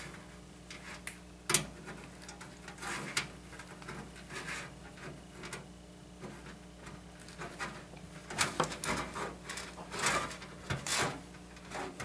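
Handling noise from hands working inside a steel computer case: scattered light clicks, taps and rubbing of fabric against the case, with a sharp click about a second and a half in and a busier patch of rustling and knocks near the end.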